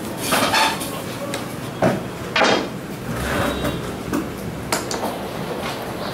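Objects being handled and set down on a tabletop: several separate knocks and clatters, the loudest about two and a half seconds in, over a steady background hiss.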